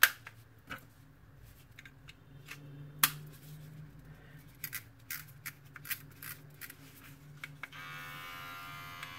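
Sharp plastic clicks and taps as the trimmer head and comb are fitted back onto the Mi beard trimmer. Near the end, the trimmer's motor is switched on and runs with a steady buzz for about a second and a half, working again after its water damage was repaired.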